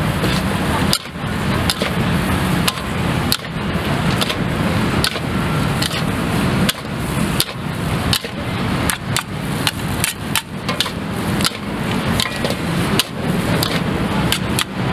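Metal spatula striking and scraping a wok during stir-frying, with sharp irregular clanks several times a second over a steady noisy background.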